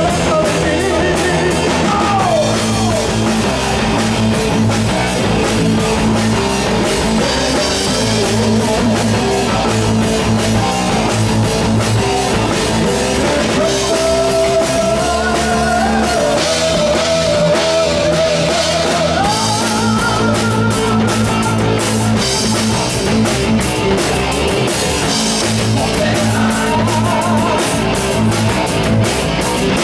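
A five-piece rock band playing live: electric guitar, bass guitar, keyboards and drum kit, with a male lead singer. A steady rock beat with a melodic line gliding up and down through the middle.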